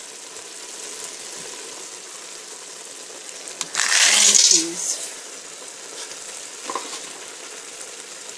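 Cooked ground beef sizzling steadily in a hot pan. About four seconds in there is a loud surge of sizzling for about a second as the vegetables are tipped into the pan.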